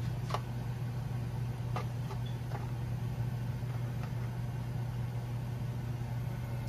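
A steady low mechanical hum, with three faint soft squelches from hands working green chillies through thick batter.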